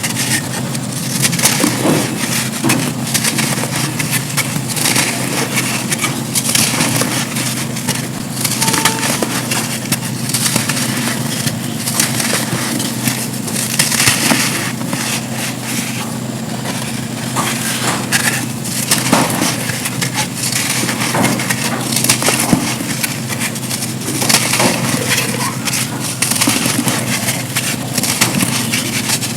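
Dry black sand slabs being crumbled, giving dense, irregular crisp crunching and crackling throughout, over a faint steady low hum.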